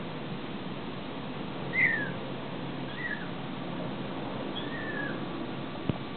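A young kitten mewing: about four short, high-pitched mews that fall in pitch, the first one loudest. A single short knock near the end.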